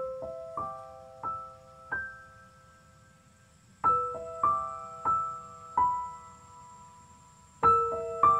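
Background music: a slow, gentle piano melody, single notes struck and left ringing, in phrases of four notes with pauses between.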